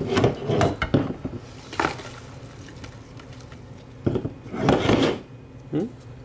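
Thin clear plastic containers being handled: several bursts of clatter, knocks and rustling as a plastic deli cup and its lid are worked and dubia roaches are tipped out into a plastic tub.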